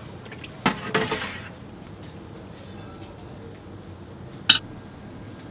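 Kitchenware clattering: a couple of knocks about a second in, then one sharp metallic clink of a serving bowl or ladle against a steel cooking pot near the end, over steady background noise.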